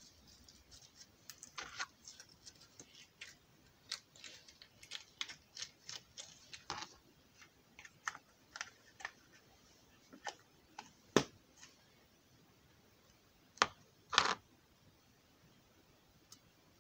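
Slime being squeezed and worked by hand, giving an irregular run of small clicks and pops, with a few sharper, louder clicks in the second half.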